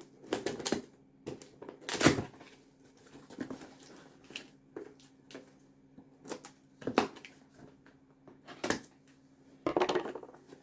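A mystery-box package being opened and handled: scattered rustles, tearing and knocks, with sharper ones about 2, 7 and 9 seconds in and a longer rustle near the end.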